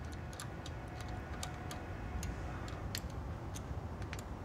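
Hand ratchet clicking as the rocker shaft bolts are run down, in irregular single clicks a few times a second.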